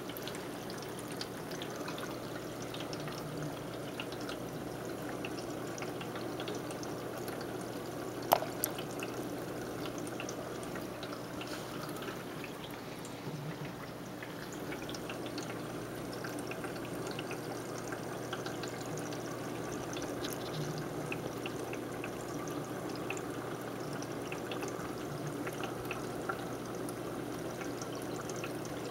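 Aquarium water trickling and splashing steadily, with one sharp tap about eight seconds in.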